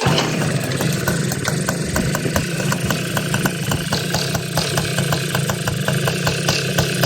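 2005 Tomos A35 moped's 50cc two-stroke single-cylinder engine running steadily after its repair, with a fast, even ticking beat. It cuts in suddenly at the start.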